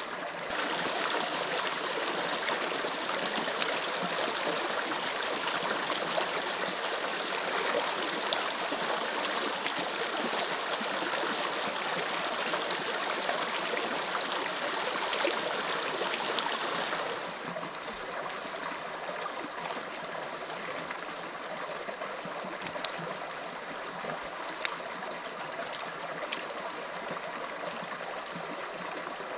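Shallow stream water running and trickling steadily, louder for the first seventeen seconds or so, then dropping to a quieter trickle, with a few faint clicks.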